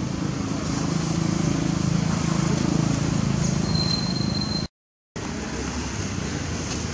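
Steady low engine rumble of road traffic. The sound cuts out completely for about half a second roughly two-thirds of the way through.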